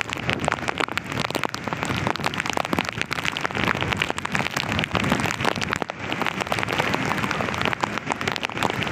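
Heavy monsoon rain in a storm: a steady rush of noise thick with the patter of individual drops hitting.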